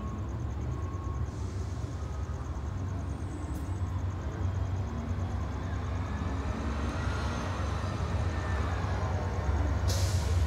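Low rumble of an approaching Amtrak passenger train at a grade crossing, growing louder toward the end, mixed with street traffic.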